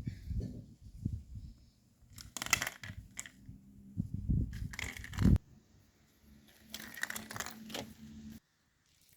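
Irregular crinkling and scraping noises in three short spells, typical of a kitten playing and scrabbling with something, cutting off abruptly near the end.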